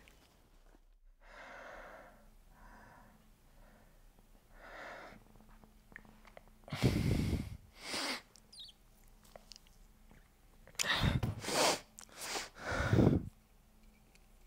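A man's heavy, noisy breathing: a few faint breaths, then four loud sighing exhalations in the second half.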